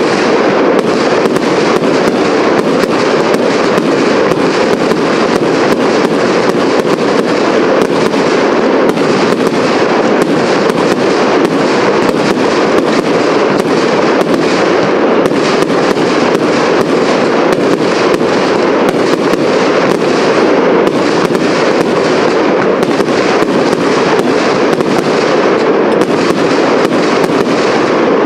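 Aerial fireworks going off in a loud, unbroken barrage: shell bursts and crackling follow one another many times a second with no pause.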